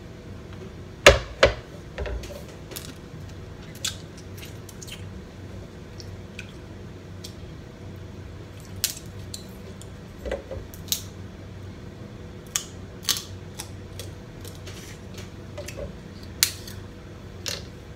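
Snow crab legs handled and eaten up close: scattered sharp clicks and cracks of shell, with wet eating sounds. The loudest knock comes about a second in.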